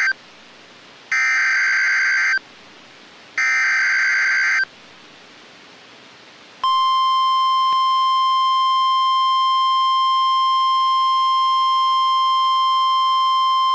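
NOAA Weather Radio alert signal. The end of one SAME digital header burst is followed by two more data bursts, each a little over a second long and about a second apart. About six and a half seconds in, the steady warning alarm tone starts and holds.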